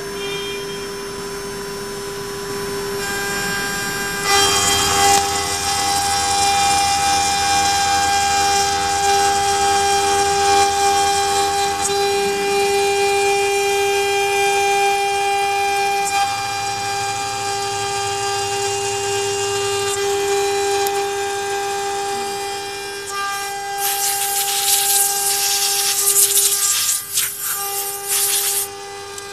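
Spindle of a 0609 CNC router whining at a steady pitch as its end mill cuts an aluminium plate, the cutting noise growing fuller about four seconds in. Near the end a loud hiss with clicks runs for a few seconds.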